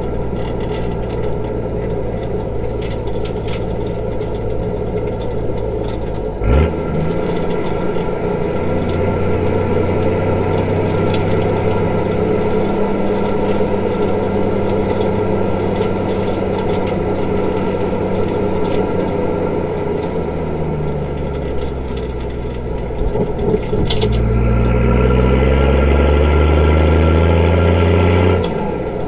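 Straight-piped Nissan Patrol TD42 4.2-litre six-cylinder diesel running under way on the road. There is a short knock about six and a half seconds in, and the engine pitch climbs over the last few seconds before dipping briefly near the end.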